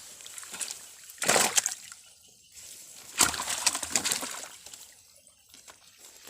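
Water sloshing and splashing in two bursts: a short one about a second in and a longer one about three seconds in.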